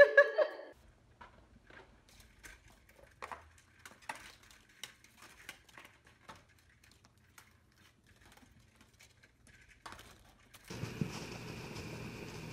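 Faint scattered clicks and taps from a rabbit moving among the vertical blind slats at a window, over a low hum. About 11 seconds in, a steady hiss sets in.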